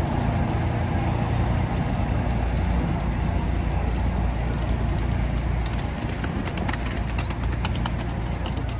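A wheeled road tourist train drives over cobblestones with a steady low rumble. From about six seconds in, a run of sharp clicks and rattles joins it.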